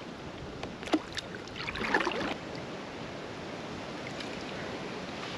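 Fishing kayak on a creek: steady water and wind noise, with a sharp knock about a second in and a brief louder rush of noise around two seconds in.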